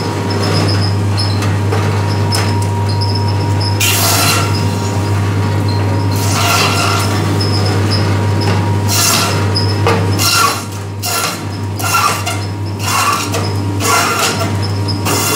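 Electric meat band saw running with a steady motor hum, its blade cutting through goat bone and meat again and again, each cut a short burst of grinding noise.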